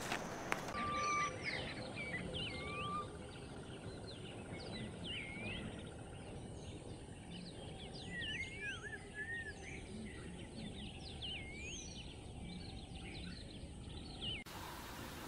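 Birds calling with many short, quick rising and falling chirps over a steady low background rumble.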